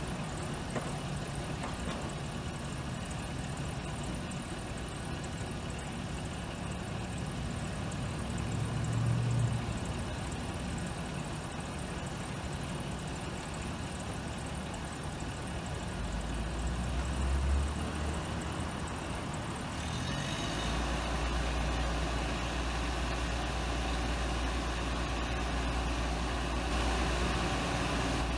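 Delivery truck's engine idling steadily, with a deeper, louder rumble setting in about twenty seconds in.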